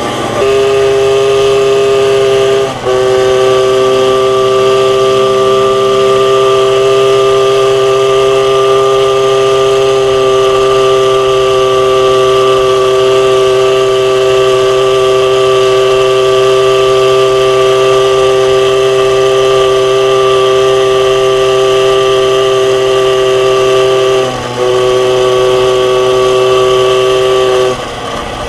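MBK 51 Magnum moped's 49 cc two-stroke single engine held at high revs under way, a loud steady drone on one pitch. It dips briefly as the throttle is eased about three seconds in and again about three-quarters of the way through, then drops off near the end.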